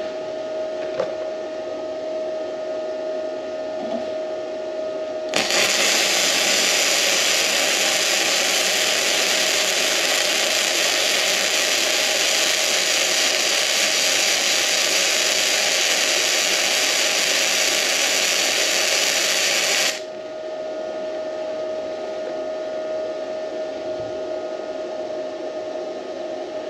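Hynade MTS155 FX flux-core wire welder striking an arc about five seconds in and laying a bead on 1/8-inch steel plate at its 125 setting: a loud, steady crackling sizzle for about fifteen seconds that cuts off suddenly when the trigger is released. Before and after the bead, a steady machine hum with a whine in it.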